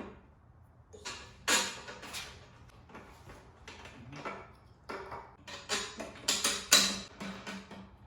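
Irregular clicks and clacks of lawn mower parts being handled and fitted together during assembly, about a dozen sharp strokes, the loudest around the middle and near the end.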